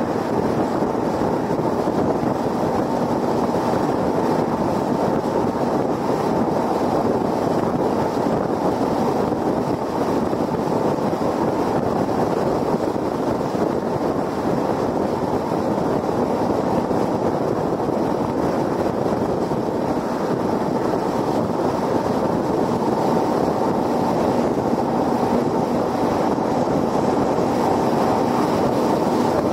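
Steady road noise from a car cruising at highway speed: tyres rolling on the freeway surface and wind rushing over the microphone, even and unbroken throughout.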